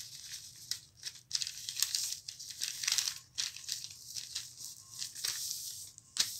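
Material being handled, crinkling and rustling in a quick run of short, irregular strokes.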